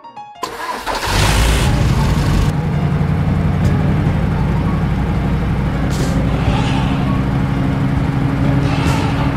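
Tractor engine running steadily with a low hum as it pulls a trailer away. There is a burst of hissing about a second in and brief hisses later.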